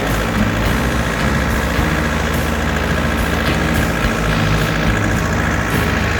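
Farm tractor engine running steadily with an even low pulse.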